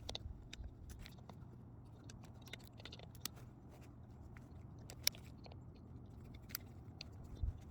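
Faint, scattered clicks and taps of small screws, nuts and tools being handled at a rail joint, over a low steady hum.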